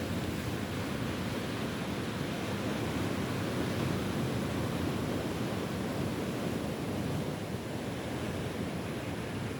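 Ocean surf washing steadily onto the shore, with wind rumbling on the microphone.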